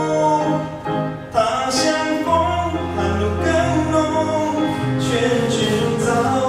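Music: a Mandarin ballad sung over instrumental accompaniment.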